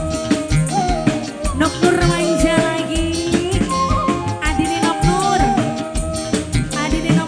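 Live dangdut band music: a bending melody line, sung or played, over a regular drum beat.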